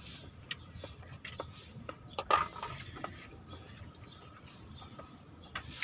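Faint, scattered light clicks and taps from a food container and utensils being handled, a few over several seconds, the loudest about two and a half seconds in.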